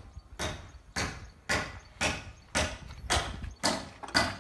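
Footsteps crunching on gritty ground, about two steps a second in an even walking rhythm.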